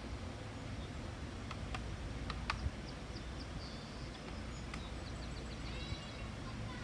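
Outdoor ambience: birds giving short high chirps and calls from about halfway through, over a steady low rumble, with a few sharp clicks early on.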